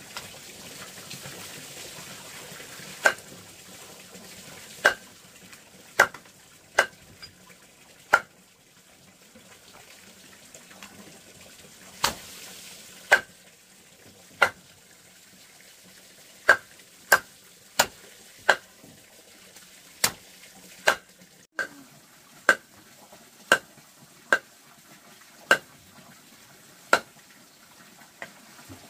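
A series of sharp knocks or clinks, about twenty at uneven gaps of roughly a second, over a faint steady hiss.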